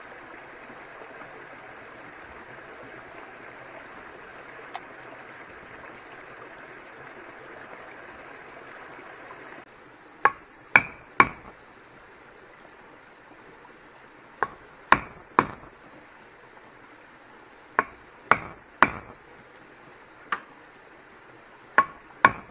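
A steady rushing noise, then, after an abrupt change about ten seconds in, sharp tool strikes on wood, mostly in groups of three about half a second apart, each with a short ring.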